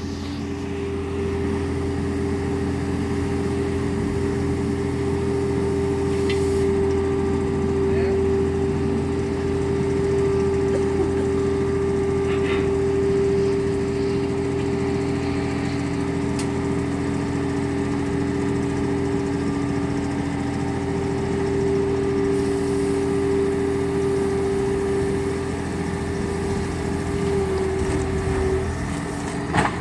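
New Holland skid steer loader's engine running steadily as the machine moves on the trailer and ramps, a constant drone with a steady whining tone that wavers briefly near the end.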